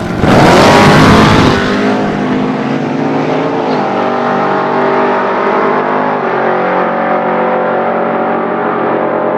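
Drag-racing Chevrolet C10 pickup launching off the line at full throttle: a loud burst of engine noise for about the first second and a half, then the engine running on at a lower level as the truck pulls away down the strip.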